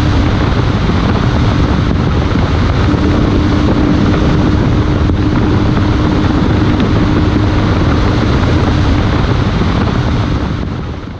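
Steady rush of wind and road noise mixed with the drone of a BMW R1200 GS Adventure's boxer-twin engine holding a high cruise of about 166–170 km/h, with one steady low hum through it. The sound fades out near the end.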